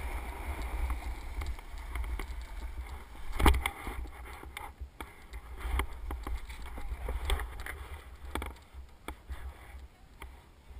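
Wind buffeting the microphone in a low rumble, with the scraping and clattering of skiing on snow; a sharp knock about three and a half seconds in, and quieter near the end.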